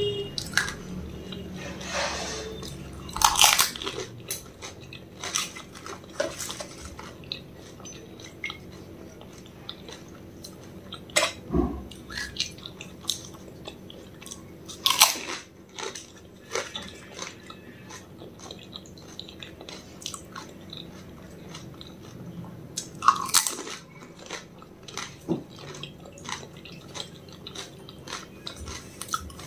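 Crisp fried golgappa (pani puri) shells being bitten and chewed with the mouth close to the microphone. Several loud crunches come at irregular intervals, with quieter chewing and small clicks between them.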